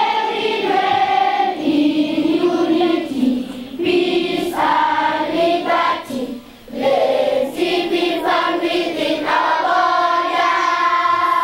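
A group of children singing a song together as a choir, phrase after phrase, with brief pauses for breath between phrases.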